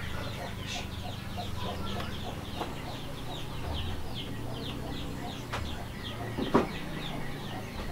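Chickens calling, a rapid run of short high peeping calls about four or five a second that fades out about halfway through, over a steady low background. Two sharp knocks come in the second half.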